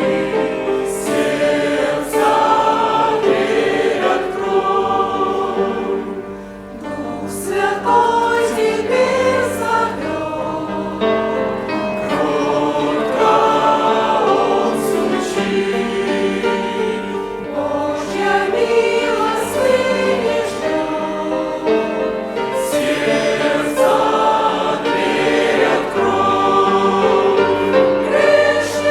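Church congregation singing a hymn together, many voices holding sustained notes, with a brief dip in loudness about six seconds in.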